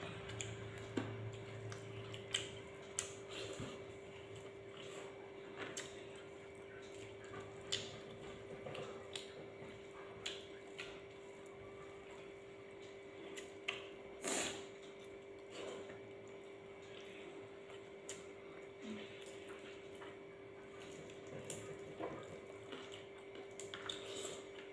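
Quiet, scattered clicks and taps of a meal eaten by hand at a table: food picked and pulled apart, with an occasional knock of a bowl or spoon. A steady hum runs underneath.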